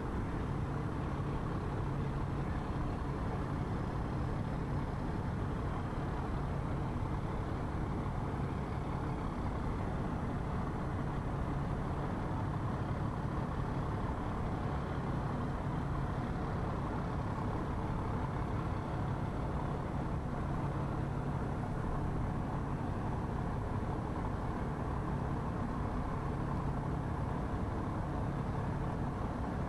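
Steady low engine drone with an even humming tone, unchanging throughout and with no distinct events.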